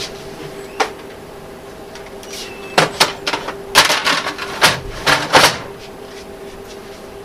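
Plastic clicks and knocks from handling the Dell 2335DN laser printer's housing and parts: a single click about a second in, then a quick run of louder clacks and knocks from about three to five and a half seconds, over a steady hum.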